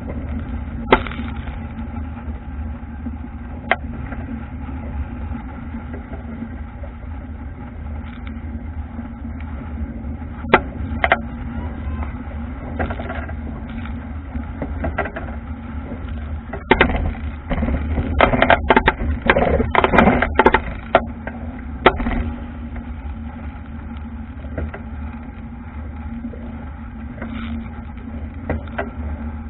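Albacore dinghy sailing hard in a strong breeze: steady wind rumble on the on-board camera and water rushing past the hull, broken by sharp knocks and slaps. A run of louder slaps and thumps comes about two-thirds of the way through.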